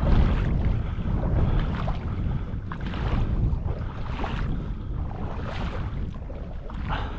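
Wind buffeting the microphone with a heavy, gusting rumble, overlaid by regular swishing strokes about every second and a half.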